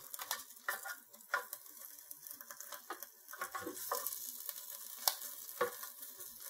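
Chicken wings sizzling in a hot air fryer basket while tongs move them, with a scattering of short, sharp clicks and taps from the tongs and the wings knocking against the basket.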